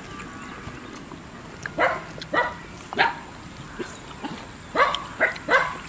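A dog barking six times, in two quick runs of three short, sharp barks.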